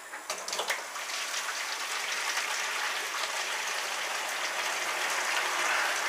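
Hot strike water running from a hose into an empty plastic picnic-cooler mash tun and splashing on its floor: a steady pouring rush, with a few light knocks near the start.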